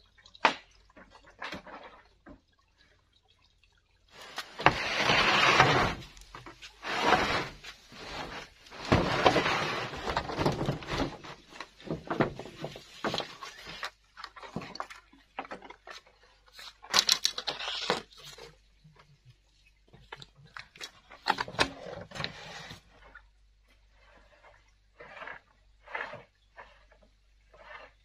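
Bamboo being worked by hand: split bamboo culms and strips cracking, knocking and scraping. Sharp knocks come at irregular times, between stretches of rough scraping and rustling a second or two long.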